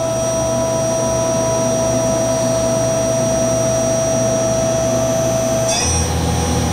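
Okuma & Howa Millac 438V CNC machining center's spindle spinning at high speed, several thousand RPM, with a steady high whine over a low hum. The whine shifts near the end as the spindle speed is changed again.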